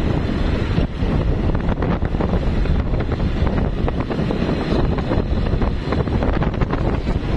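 Steady wind buffeting the microphone of a phone carried on a moving vehicle, with heavy low rumble, as it travels along a rough road.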